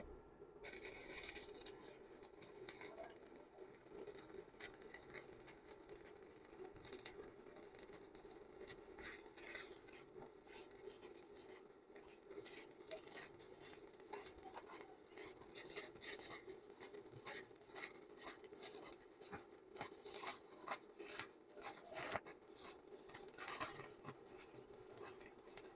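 Faint, steady crackle of a stick-welding arc: a 4 mm electrode burning on a Kobe X Super 250 welder, with scattered sharper pops.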